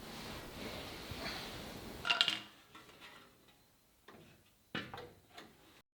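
A steady background hiss, then a few sharp metallic clanks and clinks, the loudest about two seconds in and more near the end, before the sound cuts off abruptly.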